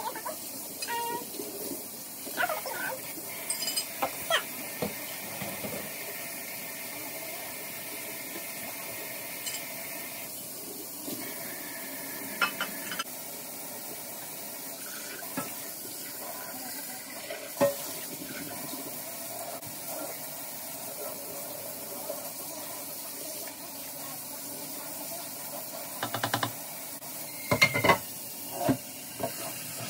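Kitchen tap running steadily into a sink while dishes are washed, with scattered clinks and knocks of cups and utensils against the sink. A louder run of clattering comes near the end.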